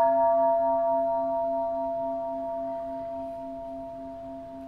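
A singing bowl ringing out after a single strike, slowly dying away: a low steady hum with a few higher tones above it, the higher ones fading first.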